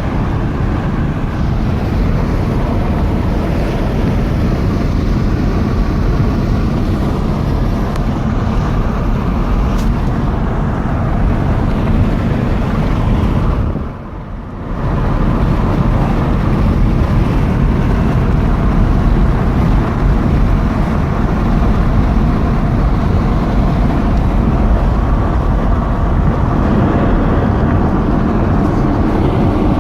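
Steady road and wind noise of a car on the move, heard from inside, with a short drop in level about halfway through.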